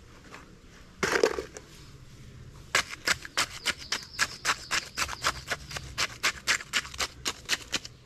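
Gritty crunching of gravelly soil being worked by hand around the foot of a wooden post in a plastic tub: a single scrape about a second in, then a quick run of sharp crunches, roughly five a second.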